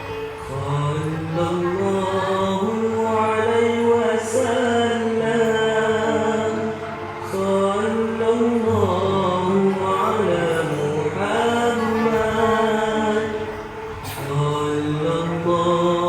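Meditative chant music: a voice holding long sung notes that glide slowly in pitch over a steady low drone, with two short breaks between phrases.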